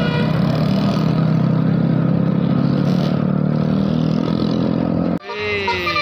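Steady engine hum of road traffic, with motorcycles passing close. After a sudden break about five seconds in, a bus's basuri telolet horn begins a sliding, warbling melody.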